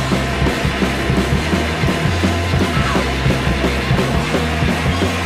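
Loud indie rock band recording, with steady drum hits over a low, driving bass line.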